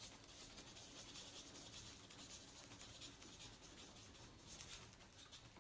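Faint, continuous scratching of a pen writing on a notebook page.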